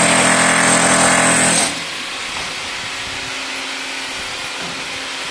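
Corded electric power tool running at full speed with a high whine, held up against the ceiling; it cuts off after about a second and a half. A steady even hiss follows.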